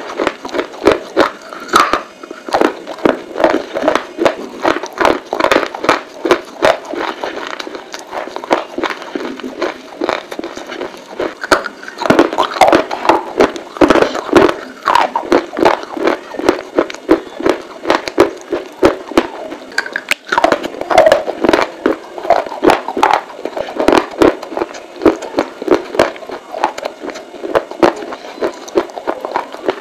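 Close-miked chewing of dry baked clay pieces: a dense run of rapid, crisp crunches and crackles, several each second.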